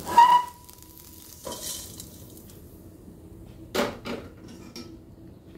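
A metal spatula strikes and scrapes a metal kadai as fried soya chunks are tipped out, and the pan rings briefly after the first loud clang. About four seconds in come two sharp clatters as the chunks land in a perforated metal colander.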